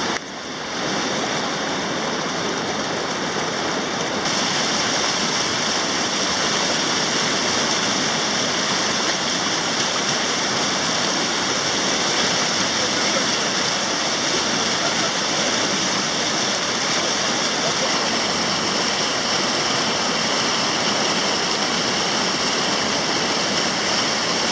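Rushing river water of whitewater rapids, a steady loud hiss of moving water with a brief dip in level at the very start.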